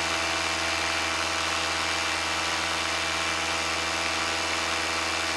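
Paramotor engine running steadily in flight, an even drone that holds the same pitch and level, with a steady rush of air over it.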